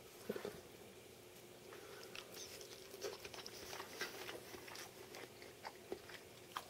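Faint chewing of a bite of soft cooked egg and sausage, with small irregular mouth clicks.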